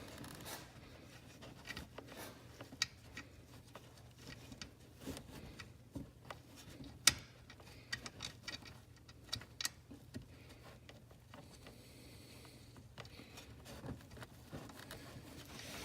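Scattered light metallic clicks and taps of a wrench being fitted to the small fill-check screw on an ATV transfer case, irregular and with a sharper click about halfway through, over a faint steady hum.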